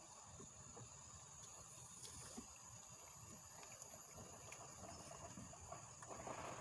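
Faint, steady high-pitched chorus of insects, an unbroken shrill drone.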